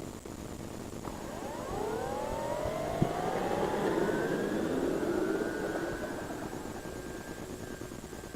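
Durafly T-28 Trojan RC plane's electric motor and propeller whining past on a low flyby. The tone rises in pitch and swells to its loudest about halfway through, then fades away. A sharp click comes about three seconds in.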